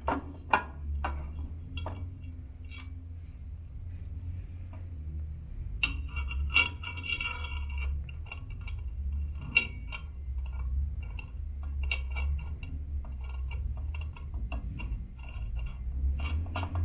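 Metal parts clicking and clinking irregularly as a one-piece crank with open-face bearings is worked into an elliptical trainer's frame, over a steady low hum.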